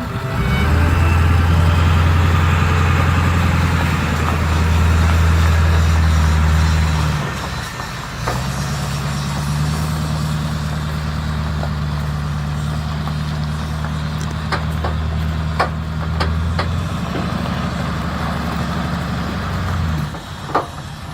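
A heavy vehicle engine running steadily. It cuts out for about a second, seven seconds in, then runs on a little quieter, with a few sharp clicks near the end.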